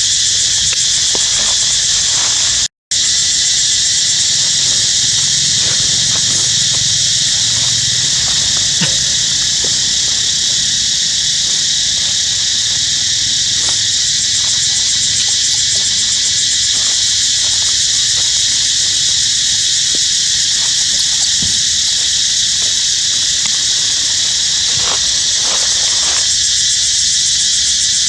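Loud, steady chorus of buzzing insects, a high continuous drone that drowns out everything else. It cuts out for an instant about three seconds in.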